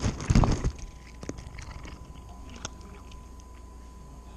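Cat crunching dry kibble right at the microphone: a loud low thump about half a second in, then scattered crunches and clicks that thin out.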